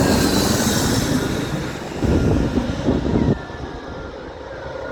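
Airliner on final approach passing close by: a loud rush of engine noise with a high whine that slides down in pitch. The low rumble cuts off about three seconds in, leaving a quieter fading whine.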